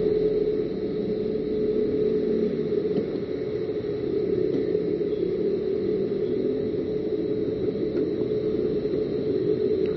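Motorcycle engine running steadily at a constant pitch, an even mechanical hum.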